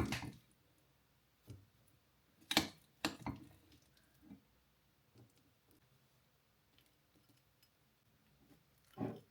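A few light clicks and knocks of objects being handled and set down on a hard surface, spaced out, with a pair of them about two and a half seconds in and a quiet gap of a few seconds before one more near the end.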